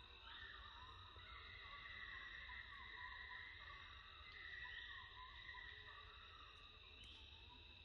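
Faint, steady high-pitched insect chorus that swells with a rising sweep three times, over a low rumble.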